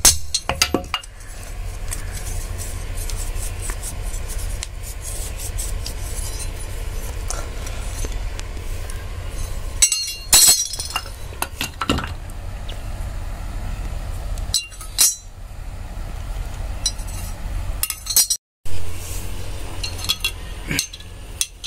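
Scattered light metallic clinks and taps of steel pieces being handled, the strongest cluster about halfway through, over a steady low hum.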